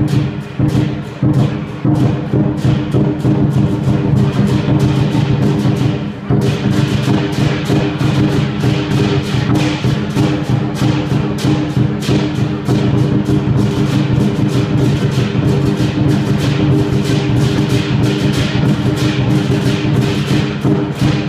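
Lion dance percussion: a large Chinese drum beaten in a fast, steady beat, with clashing cymbals and ringing gong. The playing dips for a moment about six seconds in, then carries on.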